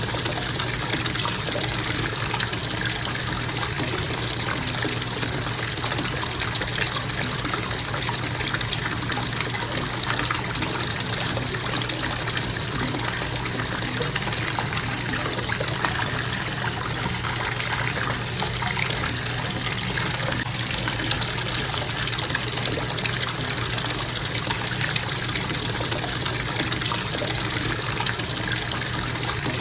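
Bathtub faucet running in a constant stream, water splashing into the tub, with a steady low hum underneath.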